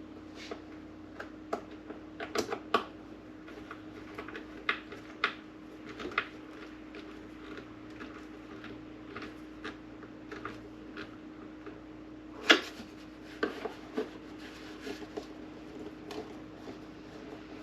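Scattered small clicks and knocks of a hand screwdriver and the coffee maker's plastic bottom cover as its screws are driven back in by hand, with one louder knock about twelve seconds in, over a steady low hum.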